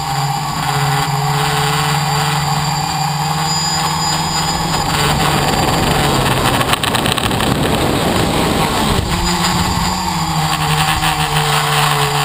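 Tricopter's electric motors and propellers humming steadily, heard from the camera on board the craft. For a few seconds midway, as the craft tilts over, the steady tone is swamped by a rush of air noise, then it comes back.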